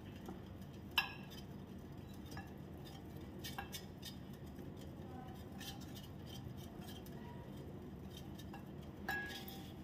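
Stainless-steel balloon whisk beating oil and powdered sugar in a glass bowl, its wires clinking faintly against the glass, with a sharper clink about a second in and another near the end.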